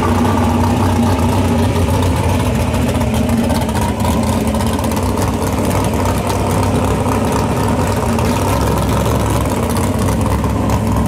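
Engine of an early-1960s Chevy II station wagon drag car idling loudly and steadily while the car creeps through the water box, with no hard revving.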